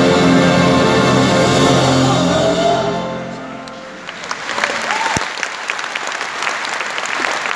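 An orchestra holds the last chord of a song, which fades out about halfway through; then a large crowd breaks into sustained applause.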